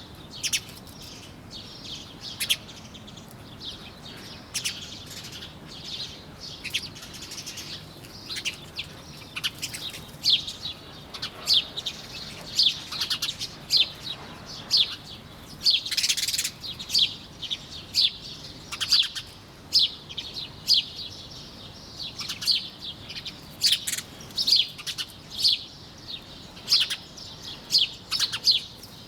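Songbirds chirping: many short, high chirps over a low steady hiss. They are scattered at first and come thicker and louder from about ten seconds in.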